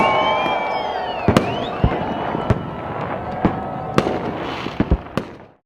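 Fireworks: whistling rockets gliding up and down in pitch, then a string of sharp bangs and pops that stops abruptly near the end.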